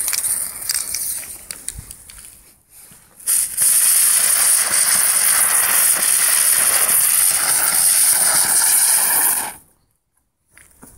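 Keller 'Alien Fire' novelty firework burning: the lit fuse sputters and crackles for a few seconds, then about three and a half seconds in the item starts spraying sparks with a loud, steady, high hiss that lasts about six seconds and cuts off suddenly.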